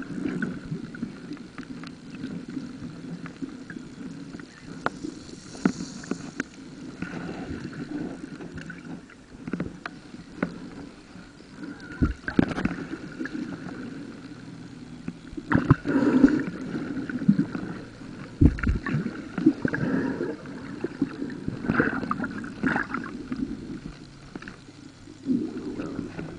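Muffled underwater sound from a camera held just below the water's surface: continuous sloshing water noise with irregular clicks and a few heavier thuds, the loudest about halfway through and again a few seconds later.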